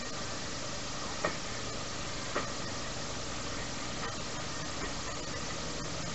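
Small tourist train running along its track: a steady rumble and rattle of the moving carriage, with sharp clacks from the wheels over the rails about a second in and again a second later, and fainter ones after.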